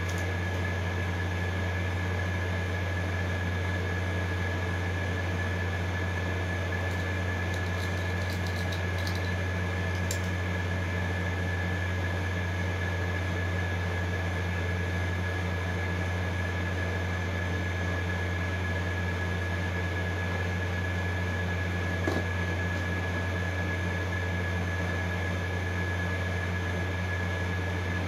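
Steady low machine hum with a constant thin whine above it. A few faint small clicks come from the tools on the opened phone about 8 to 10 seconds in and once more about 22 seconds in.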